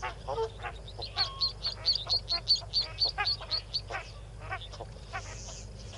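Yellow-billed duck ducklings peeping: a rapid run of short, high-pitched peeps, about five a second, lasting a few seconds from about a second in, with lower, scattered calls around it.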